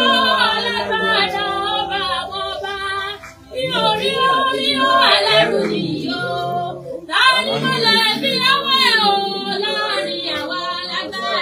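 A woman's voice singing loudly and unaccompanied, in long wavering phrases, with brief pauses for breath about three and seven seconds in.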